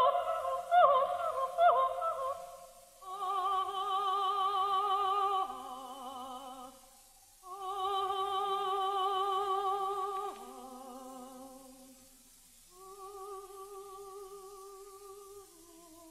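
Soprano singing operatic coloratura: quick ornamented runs, then long high notes held with a wide vibrato. The loud phrases are answered by softer, quieter ones, like an echo.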